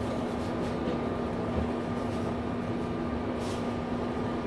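Steady mechanical hum of a standing passenger train heard at its open doorway, with a low steady tone running through it. A short hiss comes about three and a half seconds in.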